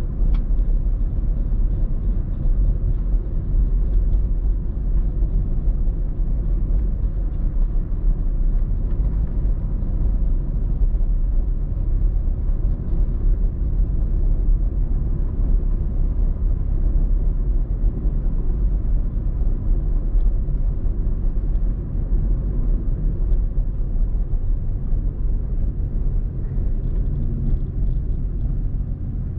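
A car driving along, its engine and tyres making a steady low rumble.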